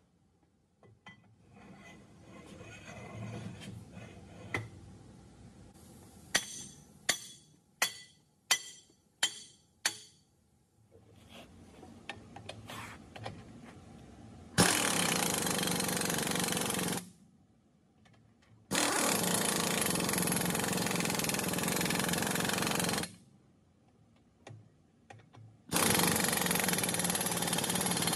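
Pneumatic impact wrench running on a nut in three long bursts of about two to four seconds each, in the second half. Before them comes a quick series of about seven sharp clicks.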